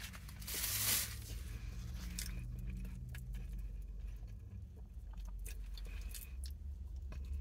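A piece torn off a bagel, a brief rustling burst about half a second in, then scattered soft chewing clicks and mouth sounds over a steady low hum inside a car.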